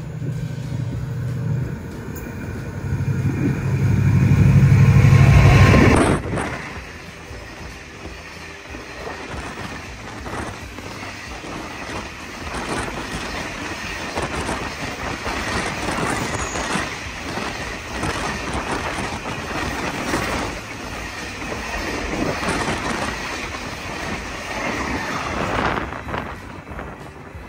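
Kiha 183 diesel railcar passing: its diesel engines hum loudly, growing louder for the first six seconds, then drop away suddenly. A quieter, steady clatter of the train running on the rails follows.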